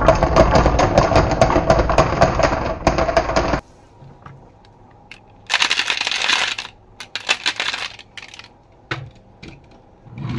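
Marbles rolling and clicking down a marble-run track: dense, rapid clattering for about the first three and a half seconds that cuts off suddenly, then scattered clicks with a short burst of rattling around the middle.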